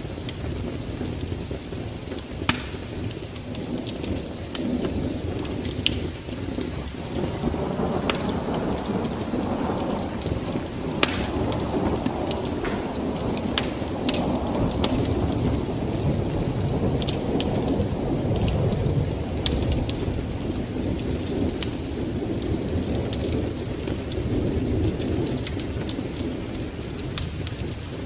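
Wood fire burning in a fireplace: a steady low rush of flames with frequent sharp crackles and pops scattered throughout.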